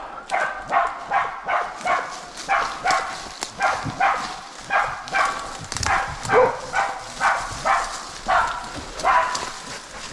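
Pig-hunting bailing dog barking steadily, about two to three barks a second: the sound of a dog holding a wild pig at bay, since she barks only once the pig has stopped.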